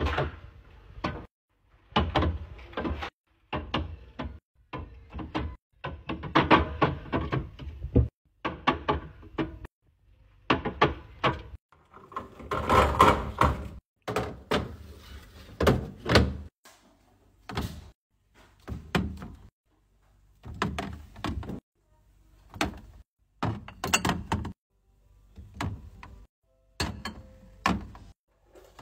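Fridge restocking and handling sounds: containers and drinks knocking and clattering as they are set in, with fridge doors and drawers thunking open and shut. It comes as a rapid series of short bursts that break off abruptly.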